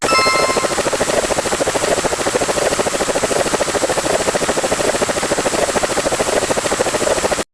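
A loud sound effect of a steady, fast-fluttering whir, with a brief bright chime at the start; it cuts off suddenly near the end.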